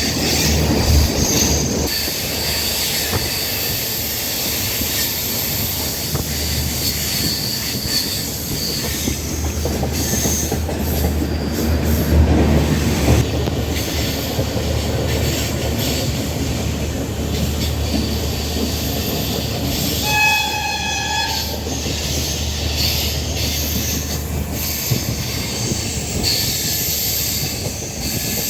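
Passenger train running, heard from a coach window: a steady rumble of wheels on the rails with a faint high wheel squeal coming and going. About two-thirds of the way through, the train's horn sounds once for about a second and a half.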